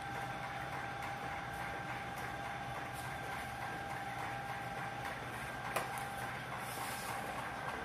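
Steady mechanical hum of room noise with a faint constant high tone, broken by a few faint clicks, one a little sharper about six seconds in.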